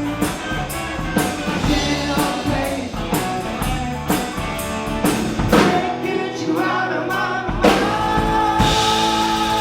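A rock and roll band plays with drum kit, guitar and singing. The steady drum beat gives way about five seconds in, and a hard hit near the eight-second mark is followed by a held chord, like the song's closing ending.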